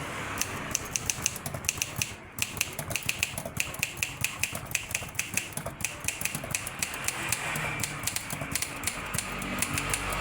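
Olympia typewriter being test-typed: rapid key strikes clacking at several a second, with a brief pause about two seconds in.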